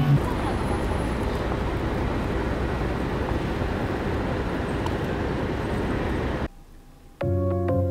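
City street ambience: a steady wash of traffic noise that cuts off suddenly about six and a half seconds in. Soft keyboard music with held notes begins shortly before the end.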